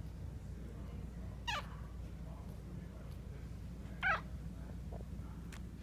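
Newborn Maltese puppy giving two short, high squeaks about two and a half seconds apart, each falling in pitch, over a steady low hum.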